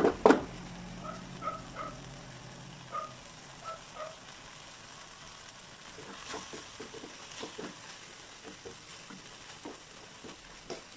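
Fishballs, squid balls, kikiam and carrot strips sizzling faintly in a nonstick wok while a plastic spoon stirs and scrapes them, with scattered small scrapes and clicks. A sharp knock of the spoon against the pan comes just after the start.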